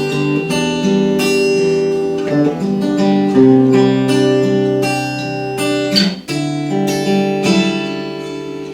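Acoustic guitar strumming sustained chords in an instrumental interlude of a slow worship song, with no singing.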